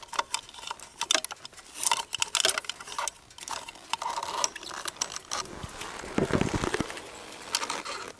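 A small plastic action-camera case being screwed onto the threaded platform of a RAM handlebar camera mount: a run of small clicks and rattles from turning and handling it, with a longer rubbing sound about six seconds in.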